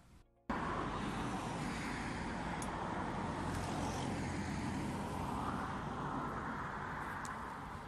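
Steady outdoor rushing noise that starts abruptly about half a second in, with a slow swell in the middle.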